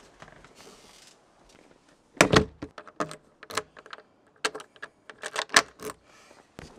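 A front door thuds shut about two seconds in, followed by a run of sharp clicks and jingles as a key is fitted into the door's cylinder lock and turned.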